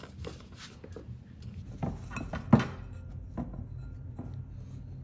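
A metal spoon scraping and knocking against a mixing bowl while flour-and-water pizza dough is mixed and pressed into a ball: scattered soft clicks, the loudest knock about two and a half seconds in.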